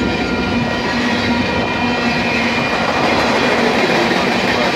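Long freight train passing close by: the steady noise of its cars' steel wheels running on the rails, with a few faint steady tones above it.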